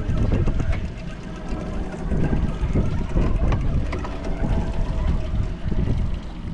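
Wind buffeting the microphone on an open boat as a low, fluctuating rumble, with a few faint clicks.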